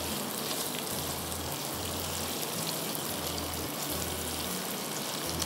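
Green chillies, capsicum and sliced onion frying in oil in a pot, a steady sizzle.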